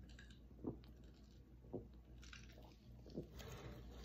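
A person swallowing gulps of a carbonated soft drink from a plastic cup: short, soft gulps about once a second, four in all, with a faint breathy hiss near the end.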